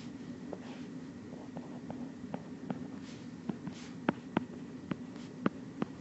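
Stylus tapping and clicking on a tablet screen while writing by hand: about fifteen light, sharp ticks at uneven intervals over a steady low hum.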